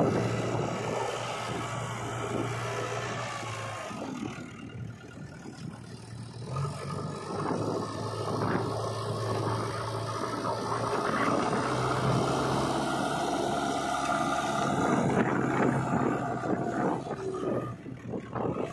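Diesel engine of a JCB 3DX backhoe loader running under load while its front loader bucket scrapes and pushes into a bank of earth, with soil crunching and scraping against the bucket. The engine note drops away for about two seconds a few seconds in, then comes back.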